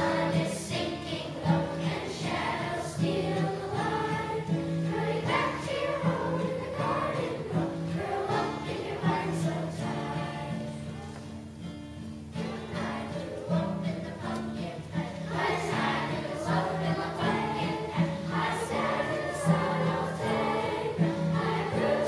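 Children's choir singing in unison, accompanied by an acoustic guitar, with a softer passage about halfway through.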